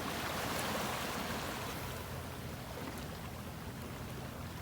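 Fishing boat's engine running with a steady low hum under a constant rush of water and wind.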